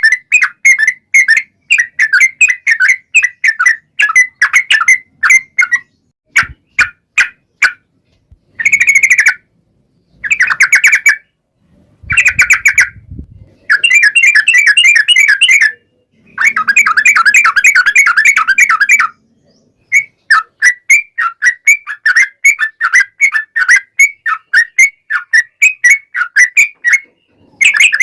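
Yellow-vented bulbul (trucukan) song: runs of quick, bubbling chattering notes, in bursts of a few seconds that stop abruptly between phrases.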